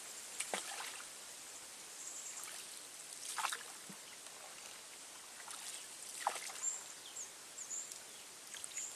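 A wooden paddle stroking through calm canal water, a soft splash about every three seconds, with faint trickling in between and faint high chirps.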